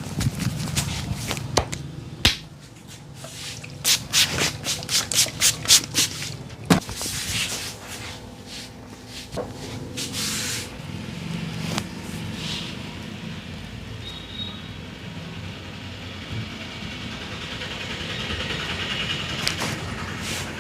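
Hands slapping and chopping during a head massage: a quick run of about nine slaps some four seconds in, with scattered single slaps and rubbing around it. A steady street background runs underneath.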